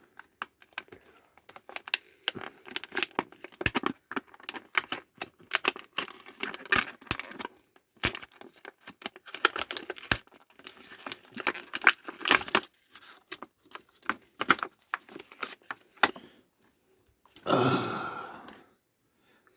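Product packaging being handled and opened: an irregular run of clicks, rattles and crinkles, then one louder tearing noise about a second long near the end.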